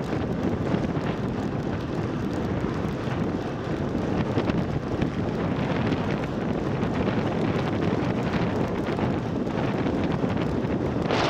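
Wind rushing over the microphone of a Garmin Virb 360 action camera on a road bike ridden at speed: a steady rushing noise, with a brief sharper hiss near the end.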